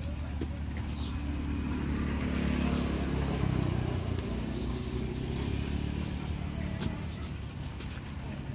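A motor engine running steadily with a low hum, growing a little louder a couple of seconds in and then easing off.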